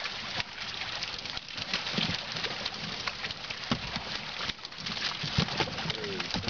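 Carp thrashing in a hauled-in net at a boat's side: an irregular patter of splashes and slaps of water, with a few heavier thumps.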